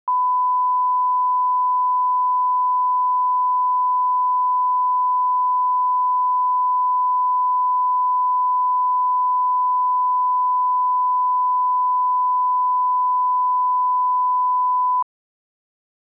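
Broadcast line-up test tone: one steady, unbroken pure beep, the level-setting reference tone played with colour bars at the head of a programme tape. It cuts off suddenly near the end.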